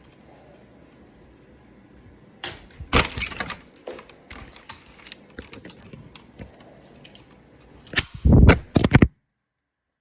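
Sharp clicks and knocks of tools and the iPad being handled on a workbench, with a louder, heavier thump and clatter near the end. The sound then cuts off abruptly.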